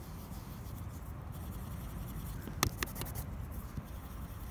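Pencil shading on paper: a faint, scratchy rubbing as the point works pigment into a coloured circle, with a few short sharp clicks about two and a half to three seconds in.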